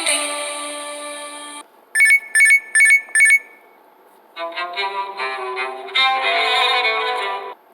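A run of alarm tones. A chime-like tone fades and cuts off about a second and a half in, then come four quick high electronic beeps, then a melodic alarm ringtone plays for about three seconds.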